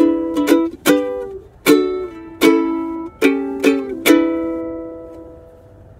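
Ukulele strumming the closing chords of a song. The last chord, about four seconds in, rings out and fades.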